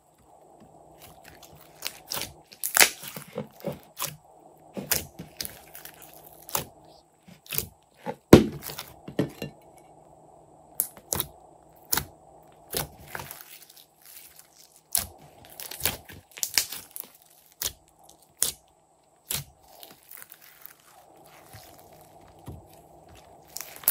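Glossy slime stretched, squeezed and poked by hand, giving irregular sharp pops and sticky clicks. The loudest pop comes about eight seconds in.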